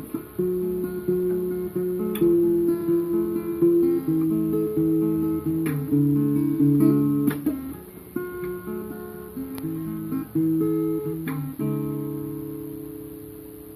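Solo acoustic guitar playing a picked instrumental passage of changing notes and chords, ending on a chord left to ring and fade.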